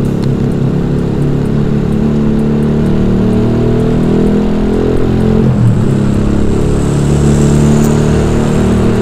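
Motorcycle with an aftermarket racing exhaust running at road speed, its engine note steady with a brief dip about five and a half seconds in, then rising again.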